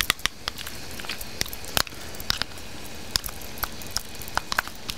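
Spoon clicking and scraping in a small container of chipotle adobo sauce as the sauce is scooped out, in irregular sharp clicks. Under it, a steady sizzle from onions cooking in a pan.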